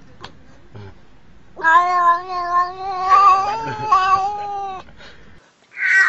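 A black-and-white domestic cat meowing: one long, drawn-out yowl of about three seconds, starting about a second and a half in and wavering slightly in pitch. Near the end comes a short, loud noisy burst.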